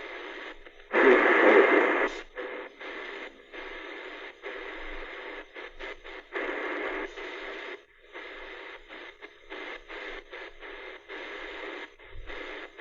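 Kaito KA550 portable DSP radio's speaker being tuned through the shortwave band: a brief loud burst of station audio about a second in, then hiss and static broken into short pieces by many brief silences as the DSP receiver mutes at each tuning step.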